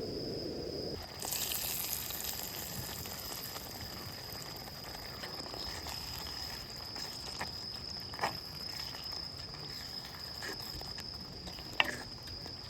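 Steady high-pitched chirring of crickets or similar insects over a faint background hiss, with a few soft clicks in the second half.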